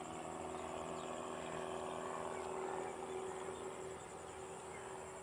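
Outdoor field ambience: insects trilling steadily and high, over a low, steady hum.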